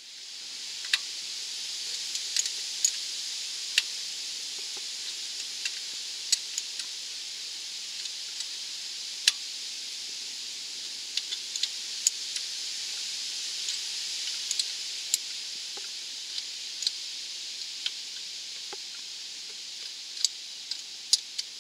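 A wrench clicking now and then on the exhaust header bolts as they are tightened down, over a steady high-pitched hiss.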